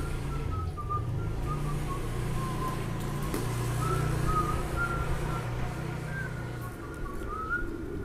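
A low, steady engine-like hum with a faint thin tone that wavers slightly up and down in pitch.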